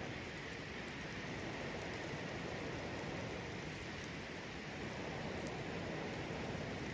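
Pork offal sizzling on an iron griddle over a campfire: a steady hiss with faint scattered crackles.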